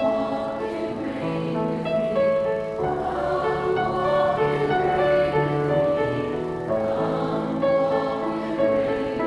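A congregation singing a hymn in sustained notes, with piano accompaniment.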